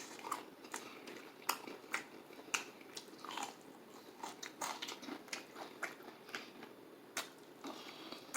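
A person chewing KFC fried chicken coated in cheese sauce: irregular crisp crunches mixed with short wet mouth smacks.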